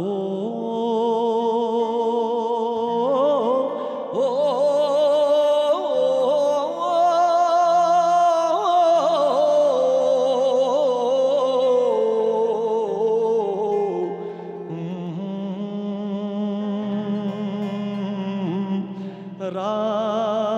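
Male vocalist singing long, ornamented notes without words, bending and wavering with vibrato, over a steady low drone.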